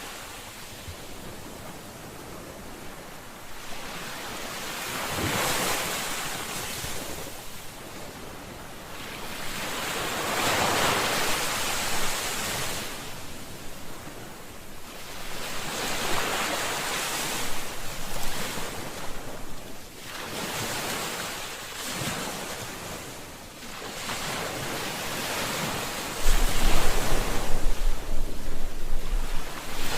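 Ocean waves breaking and washing on a shore, surging and easing every few seconds. Near the end, wind buffets the microphone with a low rumble.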